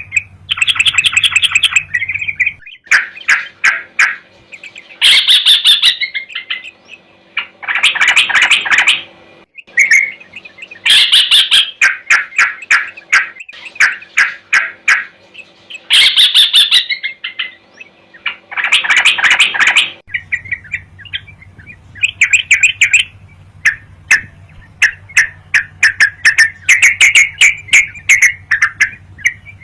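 Yellow-vented bulbul singing in full voice: loud bursts of rapid, chattering, bubbly notes, repeated every two to three seconds. It is the bird's challenging territorial song, used as a lure for rival bulbuls.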